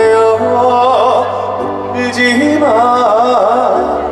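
A male trot singer singing a slow ballad live over band accompaniment, holding the notes with a wavering vibrato.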